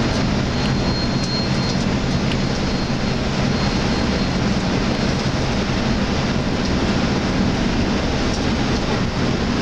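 Steady engine drone and road noise heard inside a Hyundai Universe Xpress Noble coach cruising at highway speed, with a low engine hum under the rushing tyre and wind noise.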